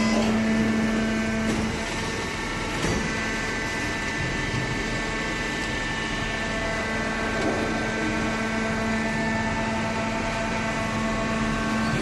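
Hydraulic cardboard baler running, a steady hum from its electric motor and hydraulic pump with a couple of light knocks in the first three seconds.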